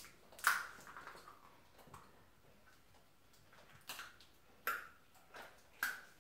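Hard plastic toy eggs clicking and tapping as they are handled, twisted and pried at to open them: a few sharp, separate clicks, about six in all, with quiet between.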